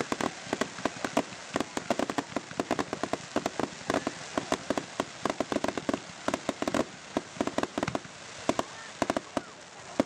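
Ground-level firework fountain spraying sparks, giving off rapid, irregular crackling pops, several small reports a second, over a steady hiss.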